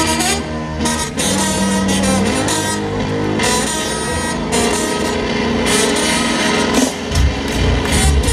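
Live band music over a large outdoor stage's sound system, heard from within the crowd, with sustained held notes over the band.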